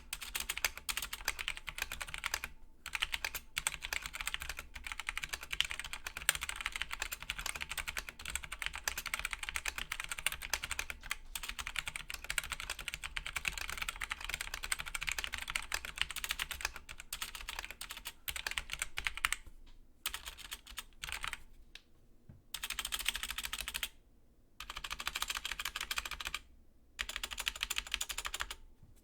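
Typing on a Genesis Thor 303 TKL mechanical keyboard with stock Outemu Brown tactile switches: fast, continuous keystroke clatter, broken by a few brief pauses.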